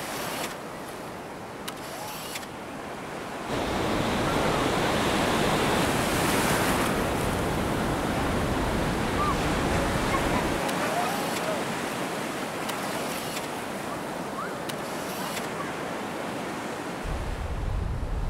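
Ocean surf breaking and washing up on a sandy beach, with wind rumbling on the microphone; the surf gets louder a few seconds in.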